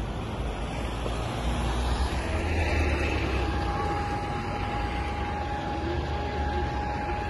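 City street traffic with the low rumble of a red double-decker bus driving past, loudest about two to three seconds in. A steady high whine comes in about three and a half seconds in.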